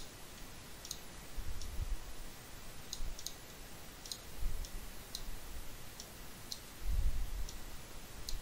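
Computer mouse clicking about ten times at irregular intervals while 3D modeling software is being worked, with a few low, muffled thuds, the strongest near the end.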